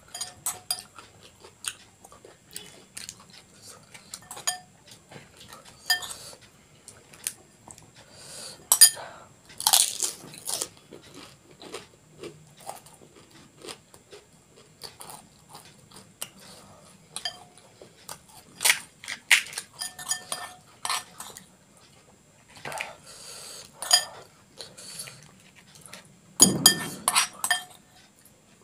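Crisp panipuri shells crackling as they are cracked open and crunched in chewing, with a metal spoon clinking and scraping in a glass bowl of filling. Irregular crackles and clicks run throughout, and the loudest crunch comes near the end.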